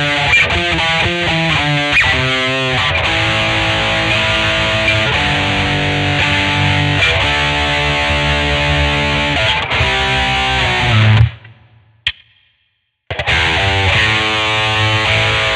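1982 Vantage VE-550 electric guitar played with distortion: a run of quick picked notes, then sustained chords. Playing stops suddenly about eleven seconds in, a single click follows in the silence, and it starts again a second or so later.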